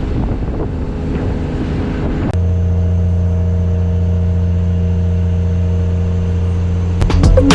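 A fishing boat's engine running, with wind buffeting the microphone. About two seconds in, the sound cuts abruptly to a steady, even low engine hum.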